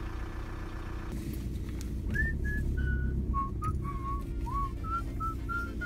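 A man whistling a short tune, about a dozen quick notes beginning about two seconds in, over the steady hum of a car engine running in the cabin.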